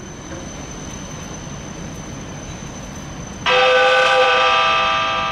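Quiet rumble with a thin steady high whine, then about three and a half seconds in a train horn sounds one loud, held blast made of several steady notes, which fades off over the following second or two.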